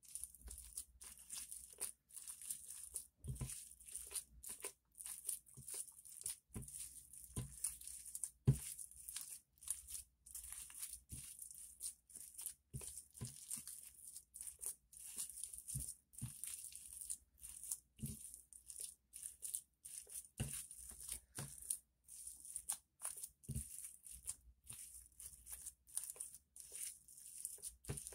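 Slime being squeezed and kneaded by hand against a glass plate: irregular small sticky clicks and pops, several a second.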